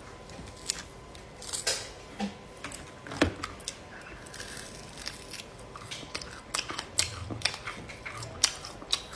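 Air-dried chicken neck being pulled apart by hand and bitten and chewed close to the microphone: irregular crunchy clicks and sharp cracks as the dried meat and bone give way.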